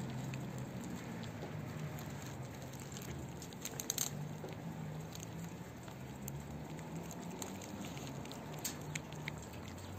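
Two cats, a mother and her kitten, chewing and smacking on chunks of wet cat food, giving many small wet clicks close up. A cluster of louder clicks comes about four seconds in. A faint low hum runs underneath.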